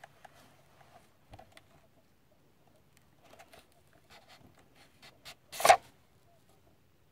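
Faint scraping and small clicks as a bullpup PCP air rifle's barrel shroud is slid off the barrel by hand, with one louder knock about five and a half seconds in.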